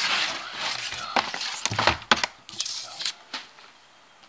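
Paper and cardboard packaging of a sneaker box being handled: rustling and crinkling, with a few sharp knocks and clicks, dying down near the end.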